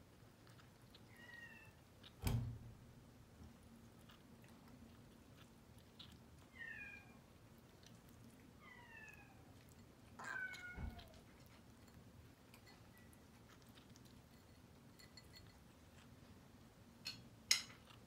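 Kitten mewing about four times, short high-pitched mews that fall in pitch, with a low thump about two seconds in, another after the last mew, and a few sharp clicks near the end.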